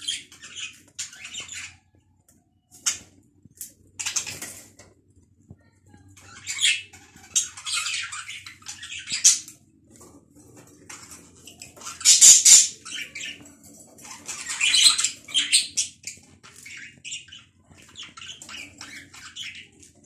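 Several budgerigars chattering and squawking, in bursts of scratchy, warbling calls with short pauses between them, loudest a little past the middle.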